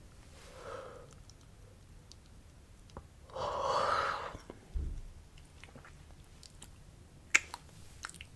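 A person's breathing: a faint breath under a second in, then a louder, airy breath out lasting about a second. A low thump follows, then a few sharp wet mouth clicks near the end.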